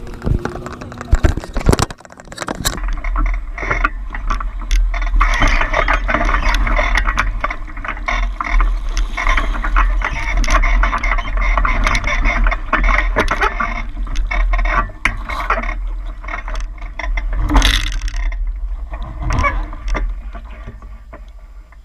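Knocks and clicks of a GoPro being handled and clamped to a Hobie 16 catamaran's boom for the first two seconds, then a steady low wind rumble on the camera's microphone with a rushing noise of water and hulls as the catamaran is launched and gets under way. A loud knock about three-quarters of the way through.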